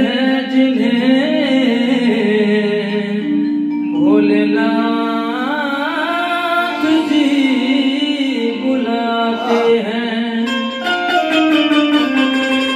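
Devotional bhajan music played on a Roland XPS-10 keyboard, a looped accompaniment under a melody with held and gliding notes, and a male voice singing in places.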